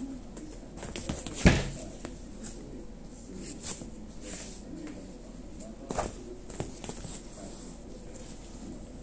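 Scattered light taps and rustles of a cord-and-wand cat toy being played with on a leather sofa, with one sharper knock about a second and a half in.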